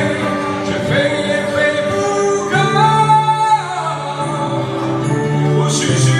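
A singer performing a slow Mandarin pop song over instrumental accompaniment, holding long sung notes, one of them near the middle.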